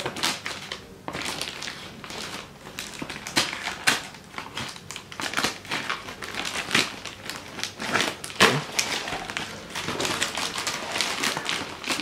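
Black plastic parcel wrapping crinkling as it is cut with scissors and pulled open by hand: a run of irregular crackles and rustles.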